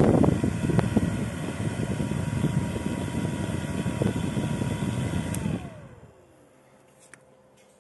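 YS.Tech FD1270157B-1F 70 mm 12 V fan running at full speed, a loud rush of air with a steady whine. About five seconds in a click comes as the power is cut, and the whine falls in pitch as the fan spins down.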